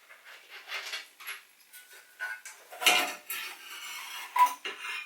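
Irregular metallic clinks and clanks of a ratchet and the motorcycle exhaust's rear clamp hardware as the clamp bolt is undone and the end can is freed. Two louder clanks come about three and about four and a half seconds in, the second ringing briefly.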